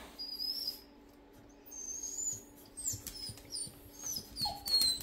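Shar-Pei whining at something outside, a series of short high-pitched whines that come faster toward the end.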